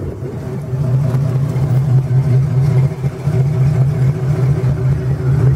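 A 1969 Ford Mustang's 429 V8 idling steadily, its low exhaust note pulsing evenly.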